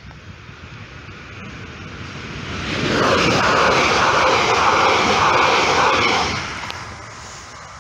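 Passenger train passing at speed, its wheels rushing and rumbling on the rails. The noise builds over about two seconds, stays loud for about three, then falls away quickly as the last car goes by.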